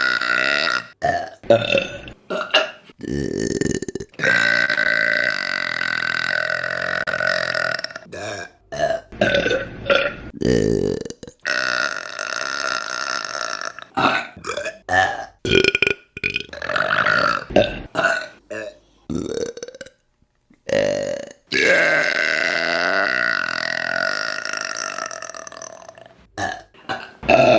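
Women burping, one clip after another: quick short burps alternating with long drawn-out ones, the longest about five seconds, near the end.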